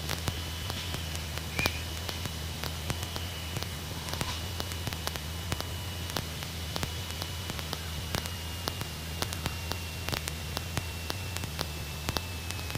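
Crackling, clicking static from old recording equipment over the steady low drone of a Cessna 150 Aerobat's Continental O-200 four-cylinder engine and propeller in cruise. A faint steady high whine runs underneath and sags slightly in pitch near the end.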